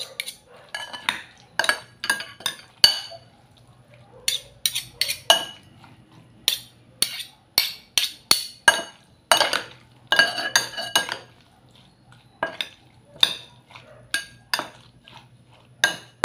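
Metal utensil stirring a mayonnaise-dressed cucumber and onion salad in a glass bowl, clinking sharply against the glass again and again at an uneven pace, with a couple of short pauses.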